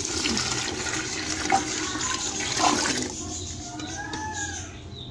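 Water poured into a cooking pot of fried chickpea masala, a gushing splash that eases off about three seconds in as the pot fills.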